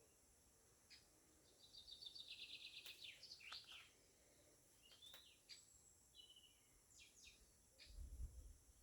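Faint songbird calls: a fast trill of a dozen or so quick repeated notes, then scattered short chirps and downward-slurred whistles. A low rumble comes in near the end.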